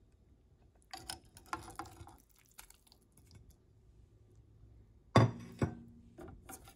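Chopped spinach being scraped from a plate into a stainless steel saucepan of cheese sauce, with a light clatter of kitchenware early on. About five seconds in there are two sharp clinks against the saucepan, the first the loudest, ringing briefly.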